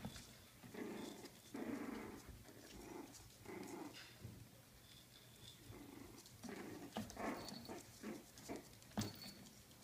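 Four-week-old Coton de Tulear puppies play-growling in a string of short, small growls, with a single sharp knock near the end.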